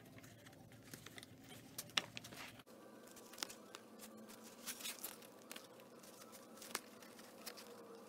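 Faint rustling, scratching and light clicks from hands working a zipper tape into the edge of a suede bag. A low background hum cuts off abruptly about two and a half seconds in.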